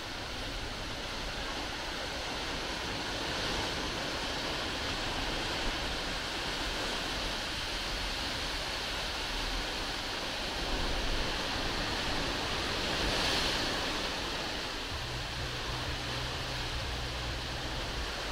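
Sea surf breaking and washing against rocks: a steady rush that swells twice as waves come in, with a low rumble near the end.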